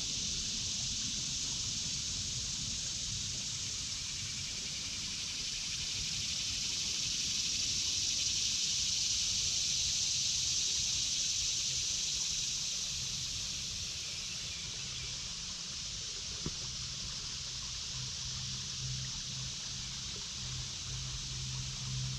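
Steady high-pitched drone of a cicada chorus (the "locusts"), swelling to its loudest midway and then easing off, over a low rumble. A single small click about sixteen seconds in.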